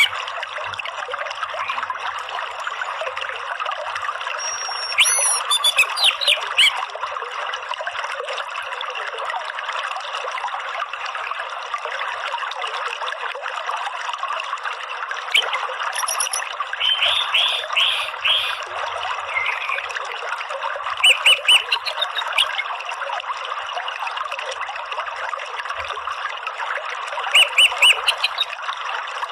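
Running water from a stream, steady throughout, with several short bursts of orange-headed thrush calls: quick runs of a few high chattering notes, the loudest sounds. The calls are the 'ngeriwik' chatter used to prompt caged thrushes to sing.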